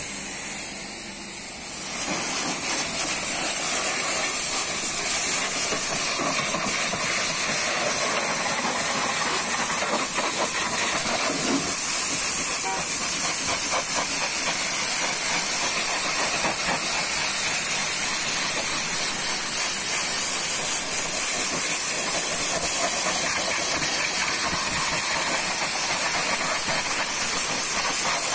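Pressure washer's high-pressure water jet spraying a car tyre and alloy wheel, a steady hiss of spray, a little quieter for the first couple of seconds.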